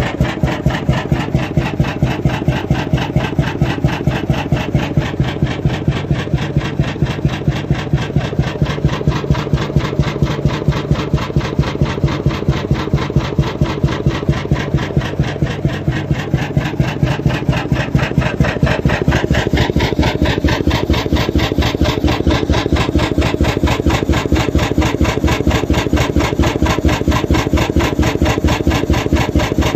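Krimo single-cylinder 21.9-litre hot-bulb oil engine from the late 1930s running steadily, with a fast, even beat. It gets slightly louder about two-thirds of the way through.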